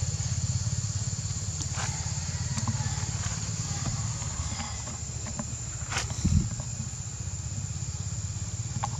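Steady low outdoor rumble with a constant high-pitched drone over it, a few faint clicks, and a dull thump a little after six seconds in.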